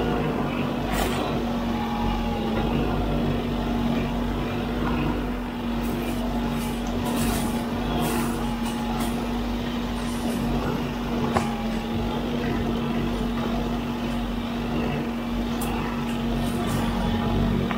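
Huddig 960C6 backhoe loader working a boom-mounted hydraulic brush cutter, a steady machine hum throughout. Short sharp cracks and snaps come now and then as the cutter chops through brush and branches, the sharpest a little past the middle.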